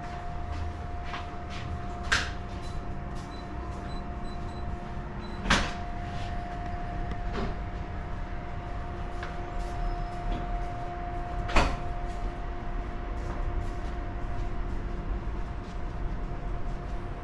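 Steady electrical hum from drink-dispensing appliances (coffee machines, ice machine, water server), with three sharp knocks and a few fainter clicks.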